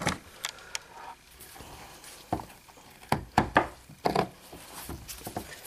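A severed horse hoof being handled on a work table: a string of separate short knocks and clicks as it is picked up and turned in a gloved hand.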